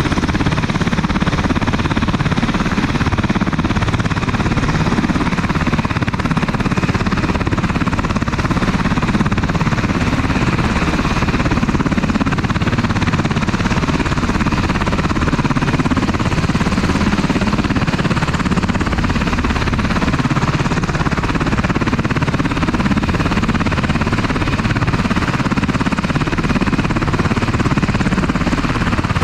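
UH-60 Black Hawk helicopter running close by: loud, steady rotor and turbine noise with a fast, even rotor beat.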